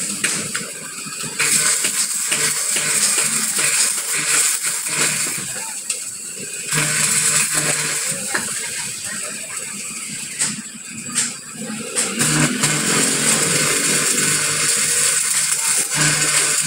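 Stick arc welding on a truck's rear axle housing to repair a break: the arc crackles and fries steadily, dropping out briefly a couple of times, over a low hum.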